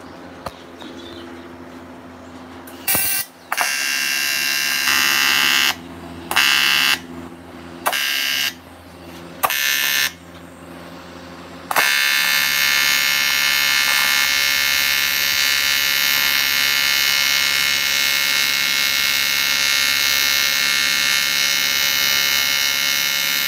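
TIG welding arc buzzing on a cast-iron Yamaha RXZ engine casing as a leak is welded from the inside. It comes in several short bursts about three seconds in, then runs unbroken from about halfway, over the steady hum of the TIG welding machine.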